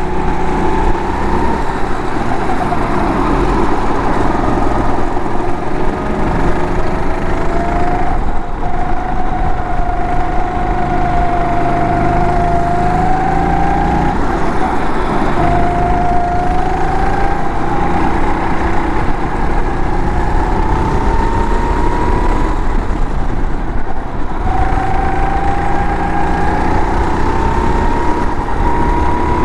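A 270 cc four-stroke rental kart engine running hard under the driver, its pitch climbing steadily as the kart accelerates, then falling sharply when the throttle is lifted for a corner, about three times.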